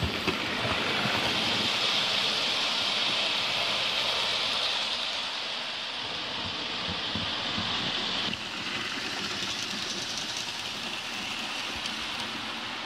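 OO gauge model trains running on the layout's track: a steady whirring hiss of wheels and motors with faint clicks over the rail joints. The sound changes abruptly about eight seconds in.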